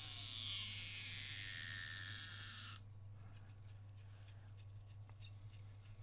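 Battery adhesive pull strip being stretched out from under an iPhone 6S battery: a steady high hiss with a slowly sliding pitch that cuts off suddenly about three seconds in, leaving only a faint low hum.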